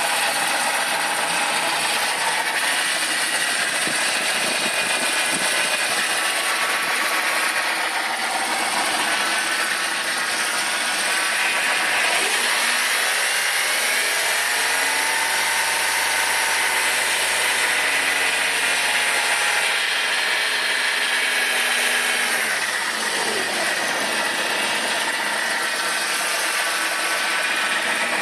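BMW 318i's M43 four-cylinder engine running with a rattling noise that appeared after an overheat caused by a failed water pump. It idles, is revved up partway through and held for several seconds, then drops back to idle.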